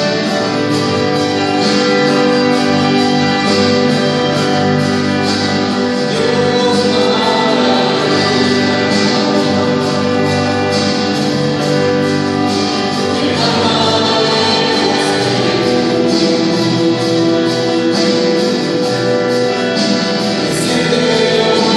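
Christian worship song: a choir singing over sustained instrumental accompaniment.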